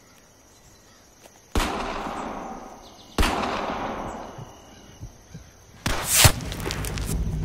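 Two single gunshots about a second and a half apart, each followed by a long echoing tail. Near the end a louder sharp crack leads into continuous noise.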